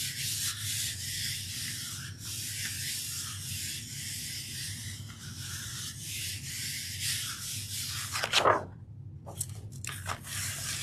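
Hands rubbing a sheet of paper over an acrylic-painted gel printing plate to transfer the paint, a steady papery swishing. About eight seconds in there is a louder sudden rustle as the paper is pulled up off the plate, followed by a few shorter paper rustles.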